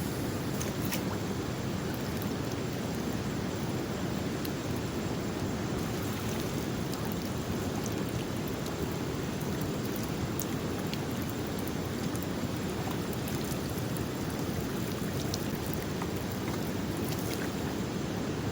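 Steady rushing of the flooded Wang River's fast-flowing water, an even noise without pause.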